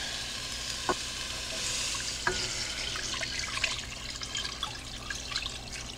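Chicken broth poured from a glass measuring cup into a large pot of raw chicken breasts and diced onion: a steady splashing pour, with two light clicks near the start.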